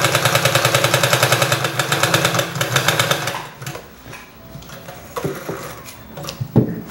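Electric sewing machine stitching a seam at a fast, even rate, stopping about three seconds in. Fabric is then handled, with a short knock near the end.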